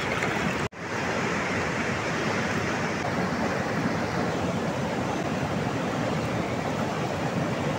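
Swollen, muddy mountain river in spate, rushing steadily over stones as an even hiss of fast water. The sound cuts out for an instant just under a second in, then carries on unchanged.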